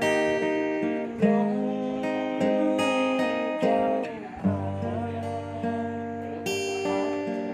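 Acoustic guitar music: plucked and strummed chords, a new chord struck every second or so.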